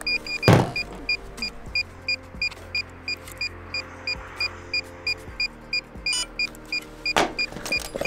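DJI FPV Remote Controller 2 beeping in pairing mode: short high beeps repeating at about three a second. There are two handling knocks, about half a second in and near the end.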